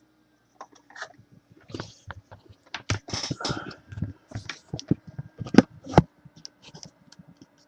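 Irregular clicks, taps and scraping rustles of small objects being handled, the sharpest two close together a little past the middle, over a faint steady hum.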